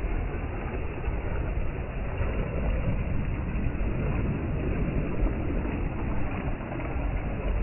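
Steady, low, rumbling rush of sea surf and wind, with no distinct events.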